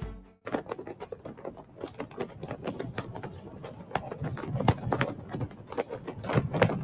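Cloth flag flapping in the wind: a rapid, irregular flutter of snaps that starts about half a second in and keeps going.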